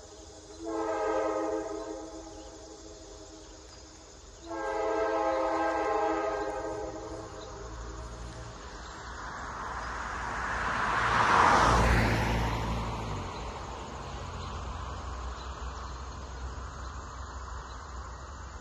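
Two blasts of a distant diesel locomotive horn, the second longer than the first. About halfway through, a vehicle passes on the road, its rush of noise swelling and fading.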